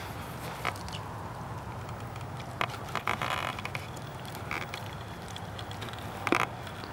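Scattered rustles and clicks of footsteps through marsh vegetation, a few at irregular intervals, over a steady low hum.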